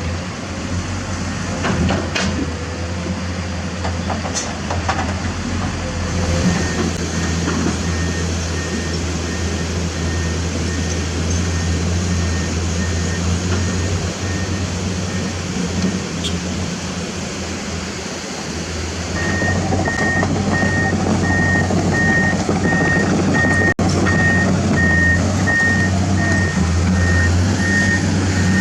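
Heavy earthmoving machinery's diesel engines running steadily, with a reversing alarm beeping at a bit under two beeps a second. The beeping is faint at first and becomes loud about two-thirds in, when the engine also grows louder.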